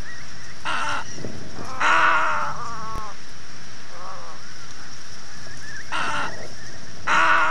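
Little egret giving a series of about five harsh, croaking calls, the loudest about two seconds in and again near the end, over a steady high hiss.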